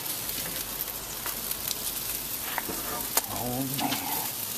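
Barbecue-sauce-basted chicken drumsticks sizzling on a kamado grill's grate: a steady hiss with a few sharp crackles.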